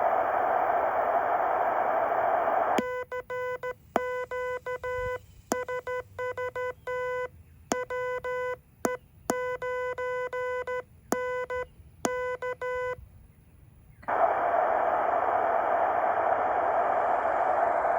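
Heathkit HW-8 QRP transceiver: receiver band hiss, then Morse code keyed out as a buzzy sidetone with a click at each key-down for about ten seconds while the hiss drops away, the sign of the rig transmitting. The hiss comes back about a second after the keying stops.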